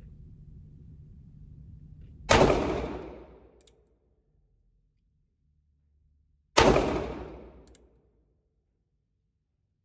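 Two shots from a North American Arms .22 Magnum mini revolver, about four seconds apart, each trailing off over a second or so of echo.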